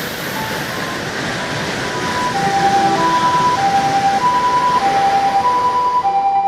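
Ambulance siren sound effect in the Japanese hi-lo style, alternating two tones about every half second. It grows louder about two seconds in, as if approaching, over a steady rushing noise.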